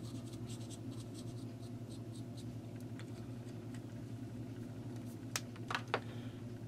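Felt tip of a flux remover pen scrubbing over solder joints on a circuit board, in faint short scratchy strokes, over a steady low hum. A few sharp clicks follow near the end.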